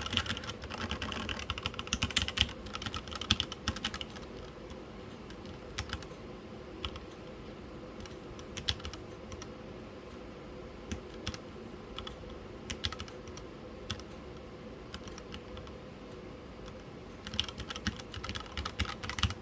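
Typing on a mechanical keyboard with Gateron Milky Yellow linear switches and DSA-profile keycaps: bursts of quick keystrokes at the start and again near the end, with scattered single key presses in between.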